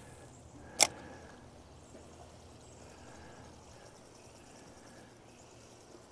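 A single sharp click about a second in, over a faint, steady outdoor background.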